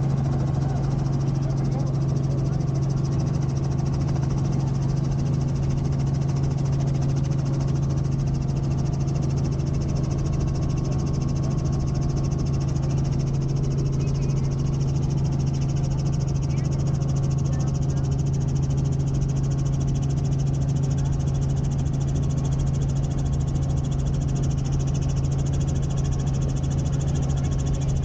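Helicopter's turbine and rotor running in steady flight: a loud, unchanging drone with a strong low hum.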